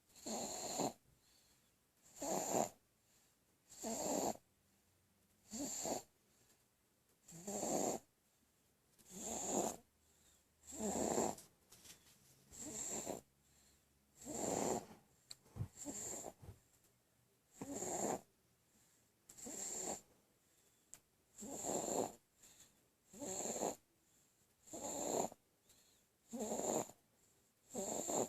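A sleeping baby snoring, a steady rhythm of about one snore every two seconds with quiet breaths in between.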